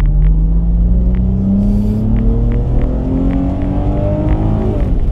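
Dodge Challenger V6 with automatic transmission accelerating hard, heard from inside the cabin: the engine note climbs, drops with an upshift about two seconds in, climbs again, then falls away near the end as the throttle is eased.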